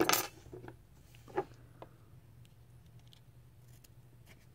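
Close-up handling noises of cotton wick being worked into a rebuildable tank deck: a short rustle at the start, then a few light clicks and ticks from the small metal parts, and another soft rustle near the end.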